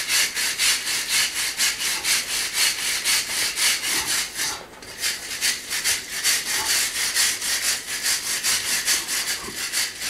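Hand wire brush scrubbing a rough stone wall in rapid back-and-forth strokes, about four a second, clearing leftover plaster off the stones. The strokes stop briefly about four and a half seconds in, then carry on.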